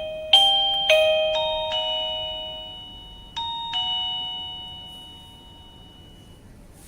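Plug-in wireless doorbell chime playing its electronic ding-dong tune, a run of bell-like notes in pairs, the last ringing out and fading away about five seconds in.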